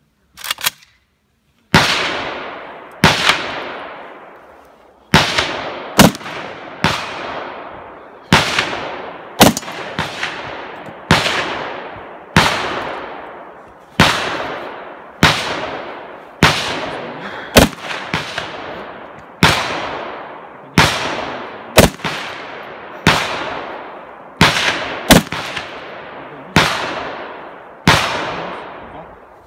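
Gunshots at a slow, steady pace of roughly one a second, about two dozen in all, each followed by a long fading echo. Two quieter shots come right at the start, before the series.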